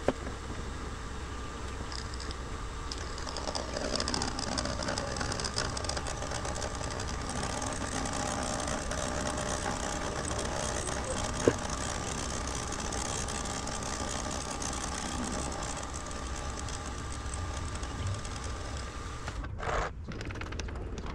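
Benchtop milling machine running, a high-speed-steel fly cutter facing an aluminium part: a steady machine hum with several held tones over the cutting noise. One sharp tick sounds about halfway through.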